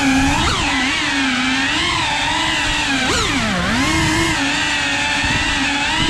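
Cinewoop FPV drone's small brushless motors and ducted propellers whining, the pitch rising and falling with throttle, with a sharp drop and climb back a little past halfway.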